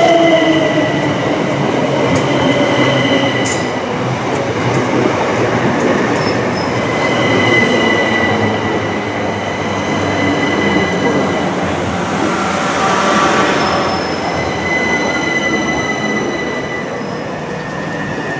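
Electric multiple-unit passenger train passing close at speed, a steady rush of wheels on the rails with a thin high squeal that comes and goes, easing slightly near the end.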